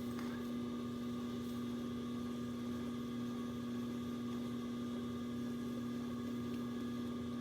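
Electric potter's wheel motor running at a steady speed: a constant hum with one strong tone.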